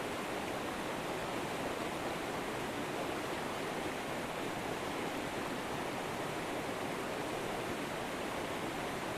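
Flowing river water: a steady, even rush that does not change.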